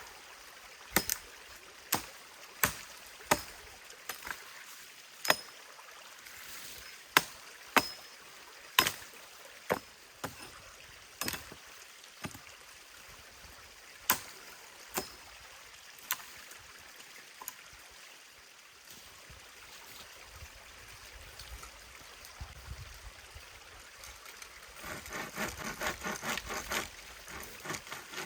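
Sharp wooden knocks at irregular intervals, about twenty of them, as wood is chopped or struck, over the steady rush of a stream. Near the end, quick rhythmic saw strokes through wood begin.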